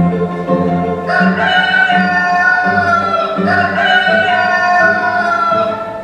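Recorded stage music with a singing voice: from about a second in it holds two long notes, each falling slightly, over a steady low accompaniment.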